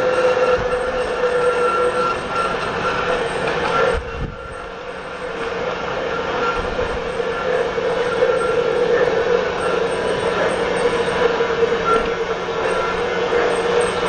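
Model train running on plastic track: the locomotive's small electric motor whines steadily over the running noise of the wheels. The sound dips briefly about four seconds in, then builds back up.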